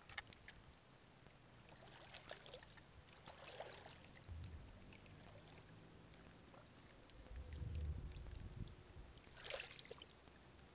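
Booted feet wading through shallow water over coral, faint splashing and sloshing in a few short spells, about two seconds in, three and a half seconds in, and again near the end. Low rumbles come in between.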